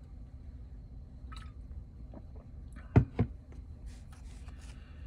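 Trading cards and their packaging being handled: faint scratchy rustles over a low hum, with two low thumps a quarter second apart about three seconds in.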